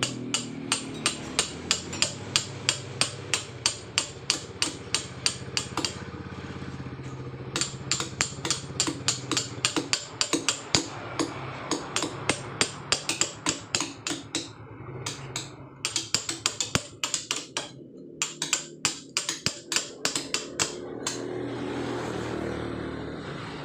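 Hand hammer striking a chisel to carve soft paras jogja stone by hand, in rapid even blows about three a second, with a short pause and stopping near the end. A steady rushing noise rises after the blows stop.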